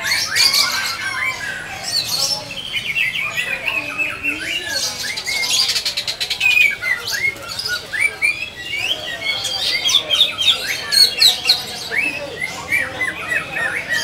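Caged songbirds chirping and calling without pause: quick runs of short, sharply rising and falling whistled notes mixed with harsher squawks.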